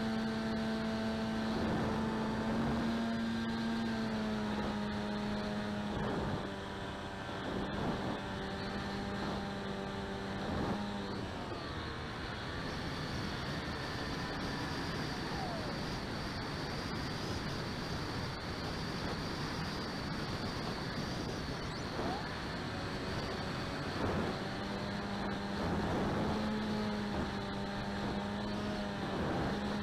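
Skywalker X8 flying wing's motor and propeller running at a steady pitch with wind rushing over the microphone. The motor hum drops out about eleven seconds in, leaving only wind noise for roughly thirteen seconds, then comes back near the end.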